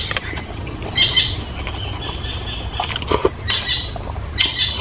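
Chewing and lip-smacking with scattered short wet clicks as food is eaten by hand, while a bird gives short chirping calls about four times.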